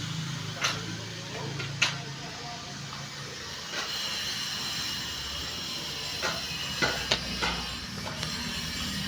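Steady machine noise, a low hum giving way to a high whine and hiss, with sharp knocks now and then, several of them close together near the end.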